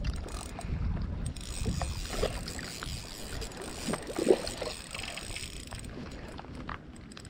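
Wind buffeting the microphone over water splashing and sloshing against the rocks as a hooked bluefish thrashes at the surface, with a couple of sharper splashes, the strongest about four seconds in.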